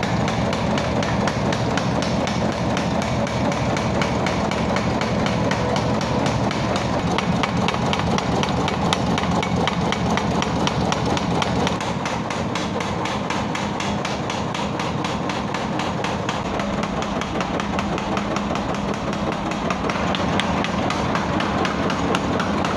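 Motor-driven power hammer forging a hot curved steel blade on its anvil block: a fast, steady stream of metal-on-metal blows that starts abruptly.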